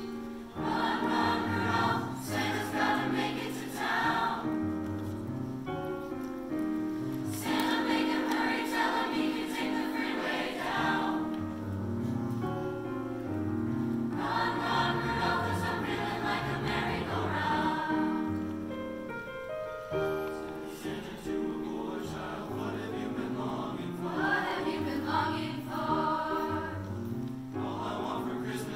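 Mixed choir of young men and women singing in parts, in long swelling phrases.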